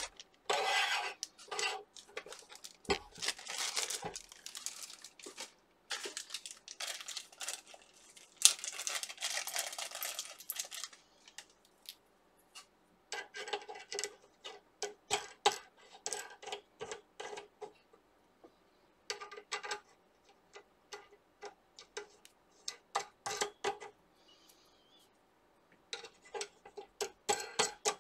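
Plastic wrapping crinkling for the first ten seconds or so. Then come short runs of quick small metallic clicks and clinks as the preheater's aluminium board-holder rails are set on their rods and the knobs turned down.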